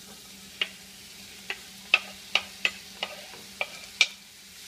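A kitchen knife scrapes and knocks chopped vegetables off a wooden cutting board into a frying pan of hot oil. It makes about eight sharp clicks, roughly two a second, over a faint sizzle.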